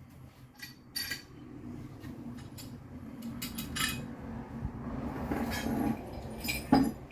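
Loose metal parts and hand tools clinking and clattering as engine parts are handled and set down, a scatter of short sharp knocks with the loudest about three quarters of the way through.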